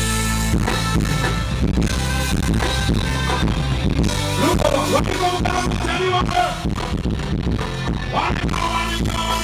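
A live band playing at a sound check, loud and continuous, with steady bass notes, drums and electric guitar.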